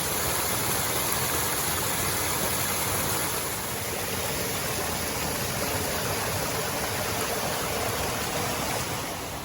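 Mountain creek rushing over rocks: a steady, even rush of water.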